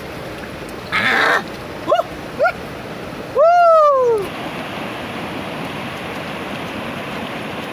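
A mountain river running over rocks in a steady rush. Over it come several short pitched calls, each rising and then falling in pitch: two quick ones about two seconds in and a longer falling one near the middle.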